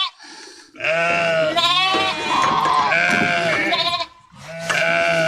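Merino sheep bleating loudly: several long, overlapping calls, with a short gap about four seconds in before another begins.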